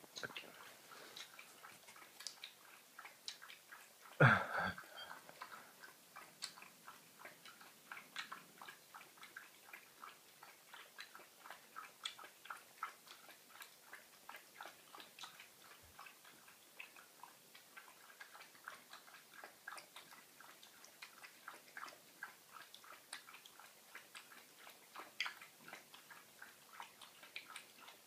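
Pug × Jack Russell cross dog lapping water from a bowl: a long run of quick wet laps, about three or four a second. One louder knock about four seconds in.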